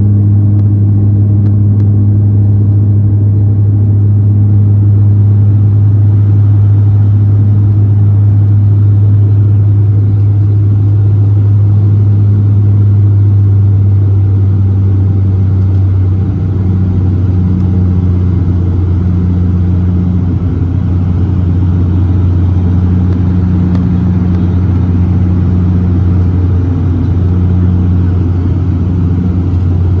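Dash 8-400 turboprop's engines and propellers droning in the passenger cabin during the climb after takeoff: a loud, steady low hum. About sixteen seconds in, the drone drops slightly in pitch and loudness.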